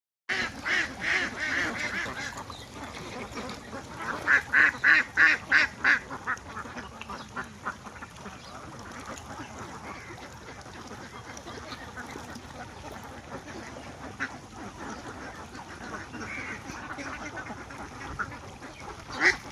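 A flock of farmed ducks quacking, with loud bursts of calls at the start and a fast run of about seven quacks a few seconds in, then a steadier, quieter babble of calls. A short loud sound comes just before the end.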